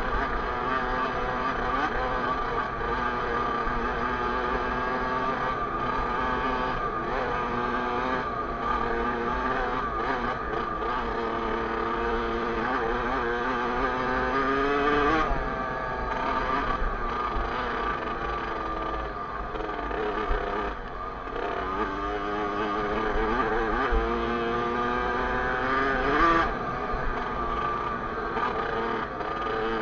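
Kawasaki KX65 motocross bike's small two-stroke single-cylinder engine riding under way, its revs climbing and dropping back again and again, reaching the highest pitch around the middle and again near the end.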